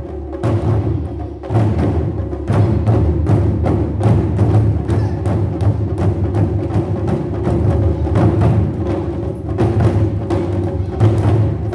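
Ensemble of Japanese taiko drums struck with wooden bachi in a fast, driving rhythm, deep booming hits mixed with sharp clicks. The playing thins out briefly near the start, then comes back in full with many strokes a second.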